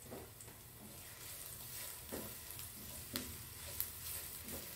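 Sliced shallots and garlic sizzling faintly in hot coconut oil in a nonstick frying pan. A spatula stirring them gives a few light knocks against the pan.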